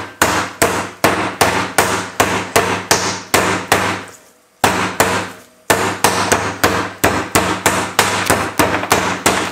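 Meat mallet's flat face pounding boneless chicken thighs flat, in steady blows about three a second with a short pause about four seconds in. The meat is being beaten to an even, thin thickness.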